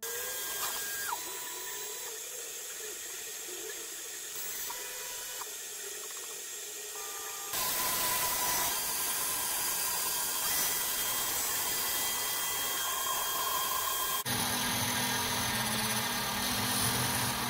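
Snapmaker CNC module's spindle running with a steady high whine and hiss as its engraving bit cuts lines into Foamex PVC foam board, with short tones from the stepper motors that step in pitch as the head moves. It gets louder about 7.5 s in, and a low hum joins about 14 s in.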